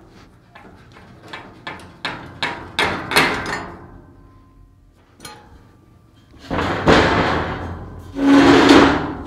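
Metal knocking on a heavy steel loader bucket: about ten knocks that come faster and louder over the first three seconds. Then two loud grinding scrapes of heavy steel shifting, the second with a brief squeal, as the angle iron works loose from the bucket.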